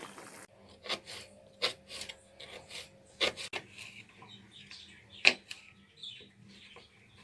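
Potatoes boiling in a pot for the first half second, which then stops abruptly. A knife slicing okra follows, with about ten sharp, unevenly spaced taps of the blade on a wooden cutting board; the loudest comes a little past five seconds in.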